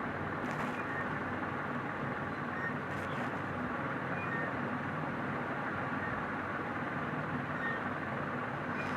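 Steady background noise, even and unbroken, with no distinct hammer blows; two faint ticks come about half a second and three seconds in.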